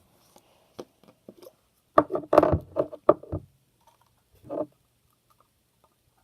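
Plastic containers being handled while getting out the laundry detergent to activate slime: a few light clicks, then a cluster of sharp knocks and clatter about two seconds in, and one more knock near the end.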